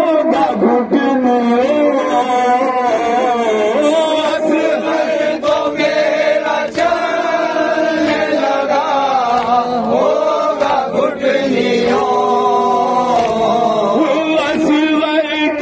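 A man chanting a noha (mourning lament) in a sustained, melodic voice into a microphone, with other men's voices joining in. Intermittent sharp slaps of hands beating on chests (matam) come every second or two.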